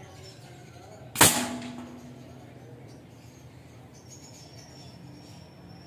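A single shot from a P10 airgun firing a 21-grain slug: one sharp crack about a second in, with a short ringing tail. Faint bird chirping follows in the background.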